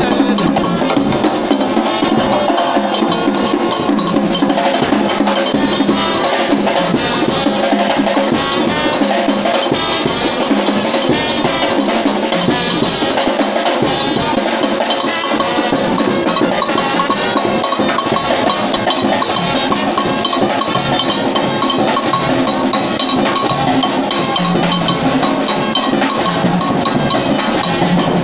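Brass band playing, driven by drums and other percussion striking a steady, busy rhythm.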